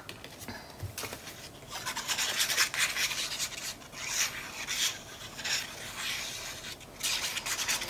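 A strip of patterned paper rustling and the nozzle of a liquid glue bottle rubbing across it as glue is run along the strip, a series of scratchy rubs.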